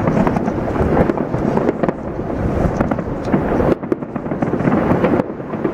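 Dense fireworks barrage: a steady din of overlapping booms and crackles from bursting shells, dipping briefly about two-thirds of the way through.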